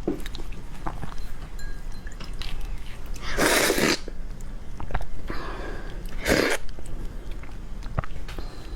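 Close-miked sounds of a person eating shrimp: soft chewing clicks, with two short, loud noisy bursts about three and a half and six and a half seconds in.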